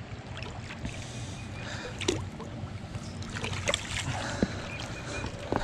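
Footsteps and scuffs on a muddy, rocky bank, with scattered sharp clicks and knocks, over a steady low background rush.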